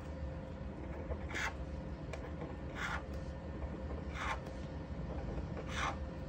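Felt-tip pen drawing short lines on paper, faint scratchy strokes about every second and a half, over a low steady hum.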